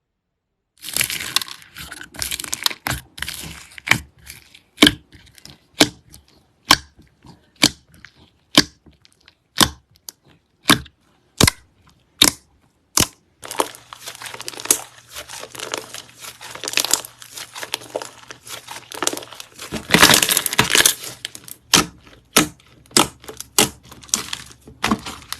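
Slime being squeezed and pressed, crackling and crunching. For the first half it gives sharp single clicks about once a second, then a denser run of crackling.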